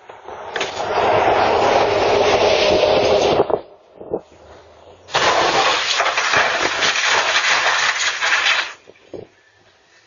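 Bus collision: loud crashing and scraping as a school bus, struck by a city transit bus, tips onto its side and skids across the pavement. It is heard as two loud stretches of about three seconds each, the second starting about five seconds in.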